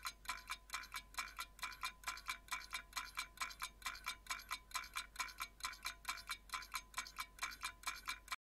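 Countdown-timer ticking sound effect: fast, even, metallic clock-like ticks, about five a second, that cut off suddenly near the end.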